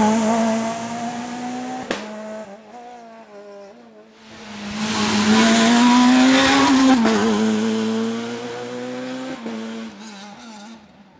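Two S2000 rally cars pass one after the other: a Skoda Fabia S2000's engine fades as it drives away. Then an Abarth Grande Punto S2000 approaches with its engine note rising under acceleration, is loudest about seven seconds in, and fades away round the bend.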